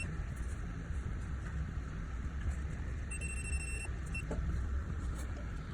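Steady low rumble of background noise, with one high electronic beep lasting under a second about three seconds in.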